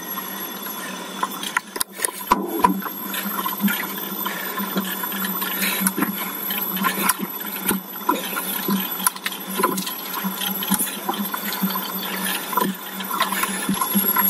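Bicycle noise on a steep road climb: many irregular clicks and rattles over a steady low hum.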